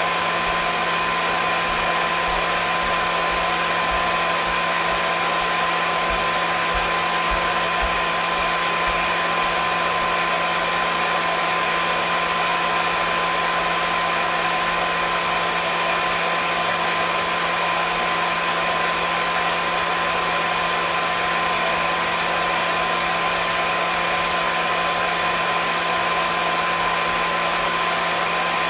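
Hair dryer running continuously at a steady level: an even whooshing airflow with a constant motor whine.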